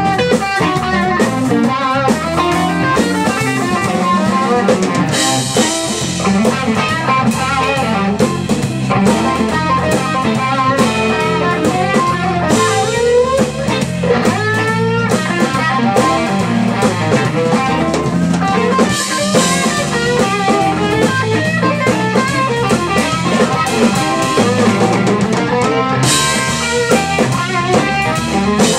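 Live blues band: a Strat-style electric guitar plays busy lead lines through an amp over drums, with cymbal crashes swelling a few times.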